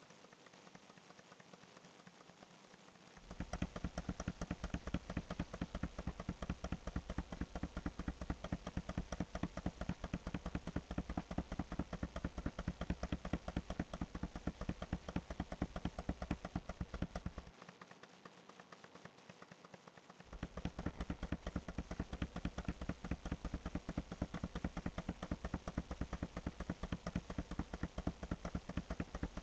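Computer mouse clicked rapidly and repeatedly, a fast even run of clicks that starts about three seconds in, stops for about three seconds, then starts again.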